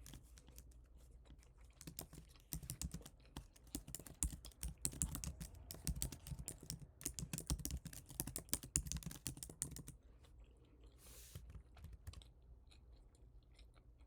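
Typing on a computer keyboard: a quick run of key clicks from about two seconds in until about ten seconds, then only a few scattered keystrokes.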